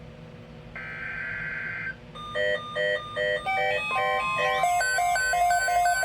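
Emergency Alert System broadcast opening. About a second in comes a harsh buzzing burst, the end of the SAME digital header. From about two seconds in, a fast repeating pattern of electronic beeps at several pitches follows: the attention tone that precedes the spoken severe thunderstorm watch.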